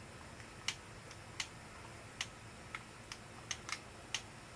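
Craftsman chainsaw's throttle trigger and trigger lock being worked by hand: about eight sharp, separate clicks at uneven spacing. The engine is not running.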